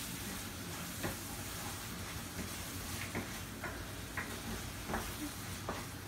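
Food frying in a pan, a steady sizzle, while a spatula stirs it, with a few short scrapes or knocks of the spatula against the pan.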